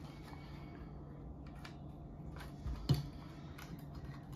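Faint clicks and scrapes of a measuring spoon against a tin of Old Bay seasoning as it is scooped and leveled, with one louder knock about three seconds in, over a steady low hum.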